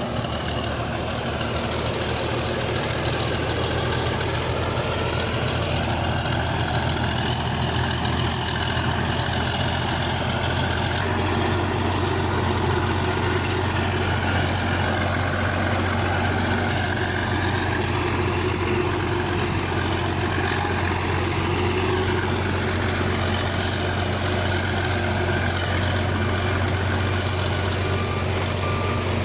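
Bulldozer's diesel engine running steadily with a low drone, growing a little louder and brighter about eleven seconds in.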